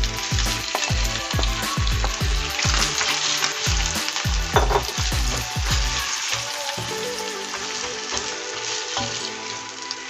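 Beef sizzling and frying in hot oil in a pan while it is stirred. A run of low thumps underneath stops about six seconds in.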